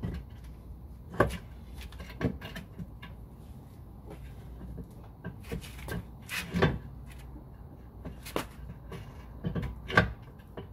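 Heavy outboard lower unit (gearcase) of a Mercury Force 120 hp being worked up into the motor's midsection by hand, knocking and clunking against it several times as the shafts are lined up. The sharpest clunks come about a second in, at about six and a half seconds, and near the end.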